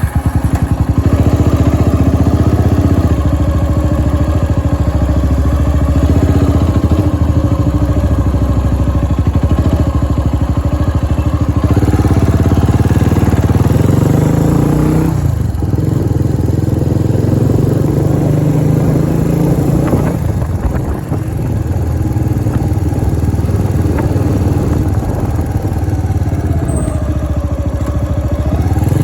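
A vehicle engine running steadily under way, its pitch dipping and rising a few times as the speed changes.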